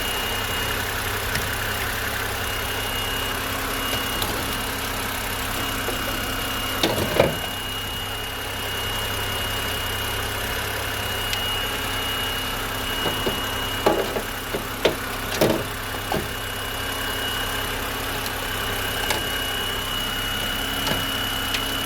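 BMW 3 Series engine idling steadily, with a thin high steady tone over it. A few sharp clicks and knocks come about a third of the way in and again around the middle.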